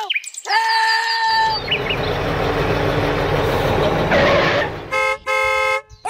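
A vehicle horn sounds twice: a short toot about half a second in and a longer, steady honk near the end. In between there is a rough, noisy rumble like an engine running.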